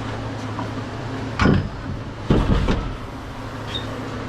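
Two loud thumps, the first about a second and a half in and a longer, rattling one just under a second later, over a steady low vehicle hum.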